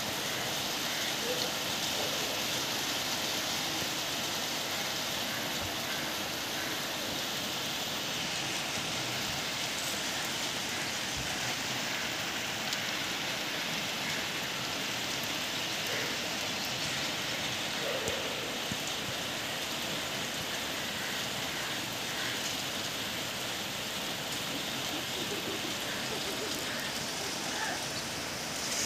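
Steady rain falling on roofs and ground, an even hiss that holds at the same level throughout.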